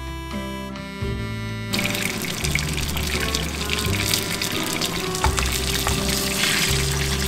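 Hot oil sizzling and spitting around a whole tilapia shallow-frying in a pan, coming in about two seconds in, over background music.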